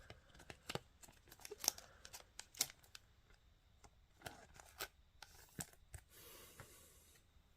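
Faint clicks, taps and rustles of trading cards and foil card packs being handled, with a longer soft rustle near the end.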